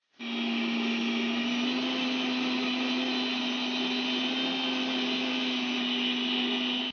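Electric mixer-grinder running steadily, blending milk, oil, sugar and vinegar into mayonnaise with its lid held down by hand. The motor comes up to speed a moment in, holds one steady hum, and switches off abruptly at the end.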